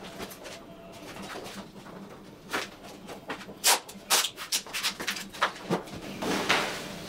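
Handling noise of cork underlayment sheets and plastic floor sheeting being laid and taped: a run of sharp crackles and taps through the middle, then a brief rustling swell near the end as a cork sheet is moved.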